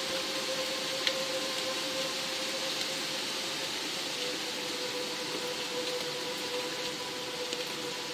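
Steady rain falling: an even hiss with a few sharp drop ticks, one about a second in. Underneath runs a steady held tone of ambient music.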